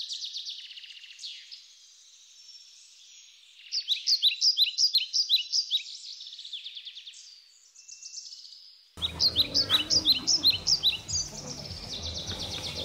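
Bird chirping: a soft high warble, then two runs of quick, falling chirps, about four seconds in and again about nine seconds in.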